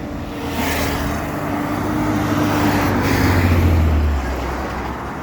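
Road traffic: a motor vehicle passing close by, its engine hum and tyre noise swelling to a peak about three and a half seconds in, then easing off.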